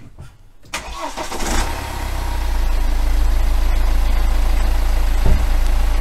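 BMW N47 four-cylinder diesel engine starting: it catches about a second in and settles into a steady idle, with a single thump about five seconds in. It is running on a newly fitted timing chain, and the owner says it sounds better already.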